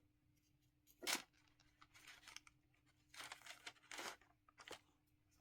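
Faint rustling and handling of unboxing packaging: a few short crinkles and scrapes of paper, the loudest about a second in, over a faint steady hum.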